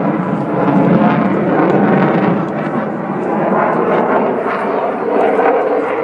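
Eurofighter Typhoon's twin jet engines, a loud, fairly steady roar of the fighter flying its display, heard over the crowd.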